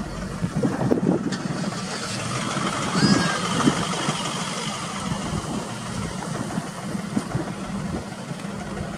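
Car engine idling steadily, with a couple of low knocks and one short, high, falling call about three seconds in.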